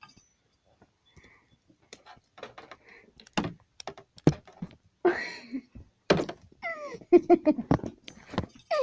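A series of irregular knocks and thumps, like objects being handled and bumped, starting about two seconds in and growing busier toward the end, with a few short pitched vocal sounds among them.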